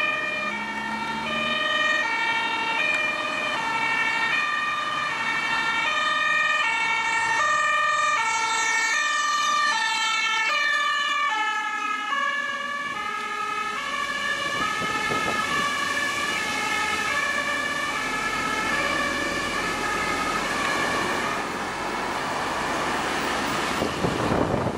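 German two-tone emergency siren (Martinshorn) on an emergency doctor's response van, alternating high and low about every two-thirds of a second. Its pitch drops as it passes close by about twelve seconds in, then it fades under road and traffic noise, with a couple of sharp knocks near the end.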